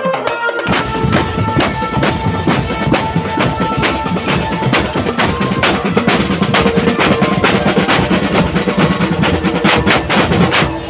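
Marching drum band playing a fast, dense rhythm on snare and bass drums, with a few held melody notes over the drumming.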